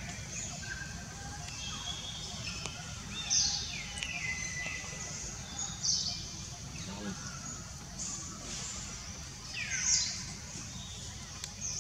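Short, high-pitched chirping animal calls, several falling sharply in pitch, the loudest about three, six and ten seconds in, over a steady low background noise.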